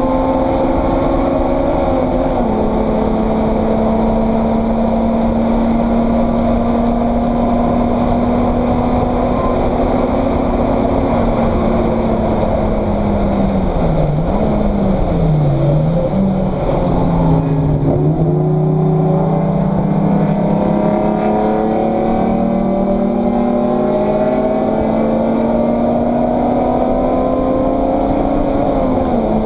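Race car engine heard from inside the stripped cabin, running hard and steady at first. Its pitch dips and wobbles in the middle as the driver slows through a corner, then climbs steadily as it accelerates, with a sharp drop near the end at an upshift.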